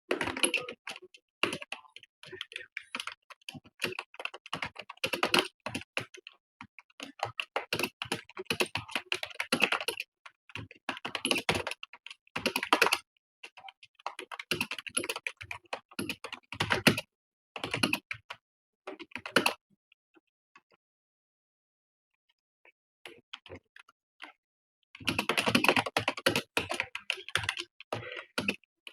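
Fast typing on a computer keyboard: rapid runs of key clicks with short breaks, stopping for about five seconds two-thirds of the way through before the typing picks up again.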